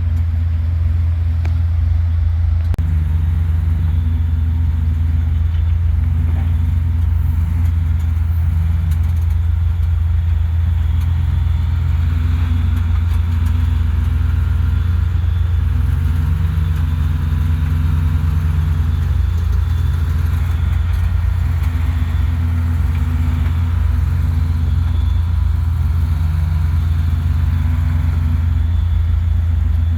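Off-road truck engine running at low revs, its pitch rising and falling again and again as the throttle is worked on and off.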